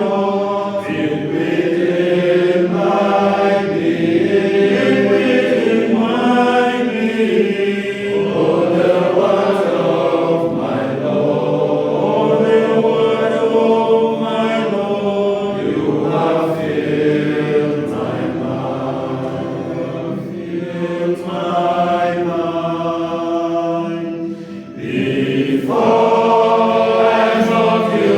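Choir of voices singing a hymn, sustained sung phrases with a short break between lines about 25 seconds in.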